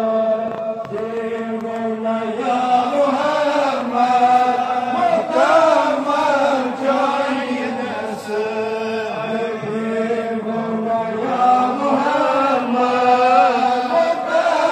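Devotional chanting by a group of men's voices together, continuous long drawn-out notes that slide gently from pitch to pitch.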